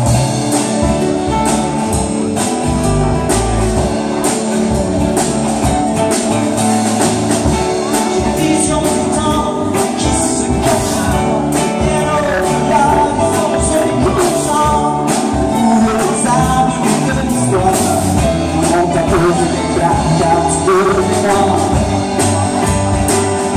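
Live band playing a song with a steady beat: drum kit, bass guitar, keyboard and strummed acoustic-electric guitar, with a man singing.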